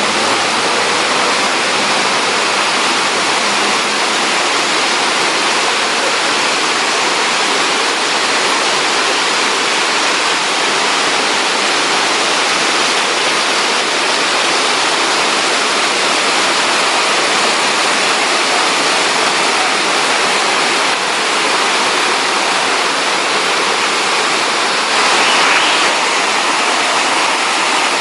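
Steady, loud rushing of water, with a brief slight swell about 25 seconds in.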